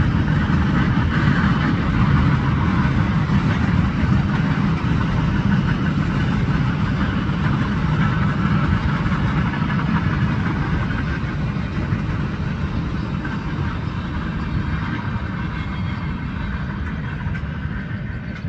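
Wheels of a long freight train's cars rolling on the rail at speed: a steady, loud rumble and rattle that slowly fades toward the end as the last cars pass.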